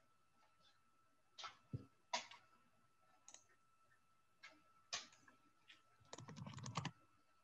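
Faint typing on a computer keyboard: scattered single keystroke clicks, then a quick flurry of clicks and knocks near the end, over a faint steady high tone.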